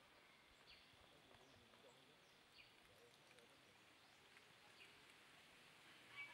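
Near silence: faint outdoor ambience with a few short, faint bird chirps scattered through it.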